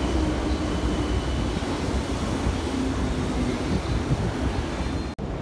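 Steady city street noise: a low traffic rumble with wind buffeting the microphone, broken by a brief dropout near the end.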